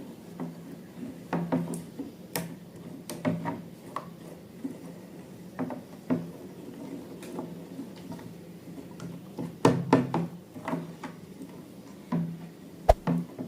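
Irregular light clicks, taps and knocks of objects and tools being handled while slime is made, with a few louder knocks around ten seconds in and again near the end.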